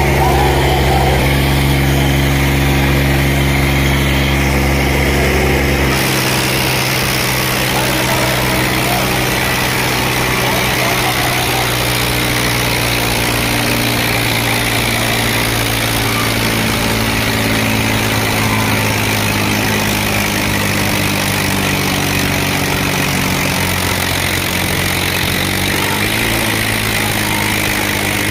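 Diesel tractor engines, an Eicher 548 among them, running hard and steady under load as two tractors pull against each other in a tug-of-war. The low end of the note drops about six seconds in, and the pitch shifts near the end.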